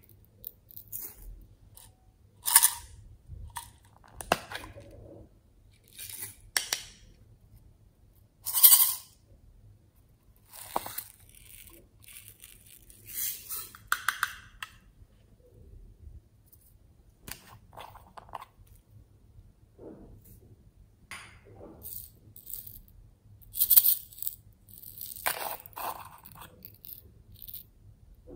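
Slime add-ins, small glass beads and bits, being tipped from little plastic cups onto a tray of slime: short clinking, pattering rattles every few seconds, the loudest about a third of the way in and again near the end.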